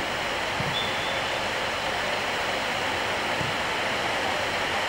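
Steady rushing outdoor background noise with no clear source, with two faint dull thuds, one about half a second in and one past the middle.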